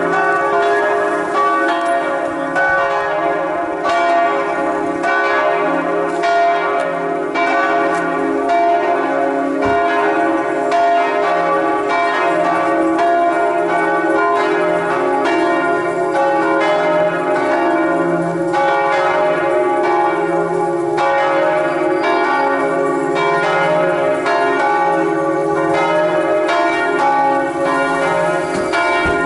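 Several church bells pealing together, struck again and again so their tones overlap in a continuous ringing: the noon bells.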